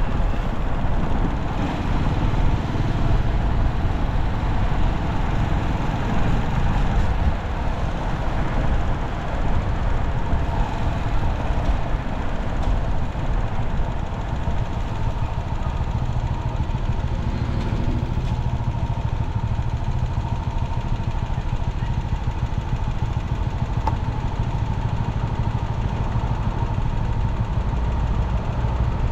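A vehicle driving: a steady low rumble of engine and road noise.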